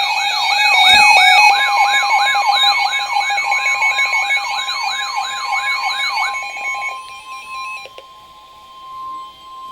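An electronic alert siren whose pitch falls again and again, about three sweeps a second, over steady tones. It stops about six seconds in and leaves the quieter, steady single-pitch NOAA Weather Radio warning alarm tone sounding on its own.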